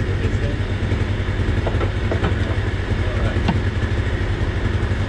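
An engine running steadily without revving, a low, even rumble, with a few faint knocks over it.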